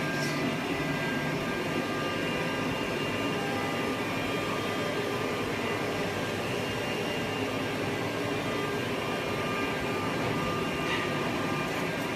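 A 1325 CO2 CNC laser cutting machine running: a steady whooshing hum with several faint steady tones.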